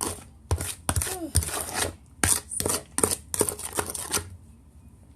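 Kitchen utensil clicking and scraping against a dish in quick irregular strokes, about three a second, stopping a little after four seconds in.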